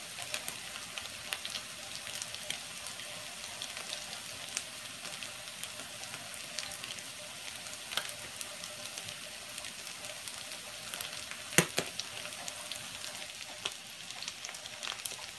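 Salmon patties frying in oil in a cast-iron skillet: a steady sizzle dotted with many small pops and crackles. One sharp knock comes about two-thirds of the way through.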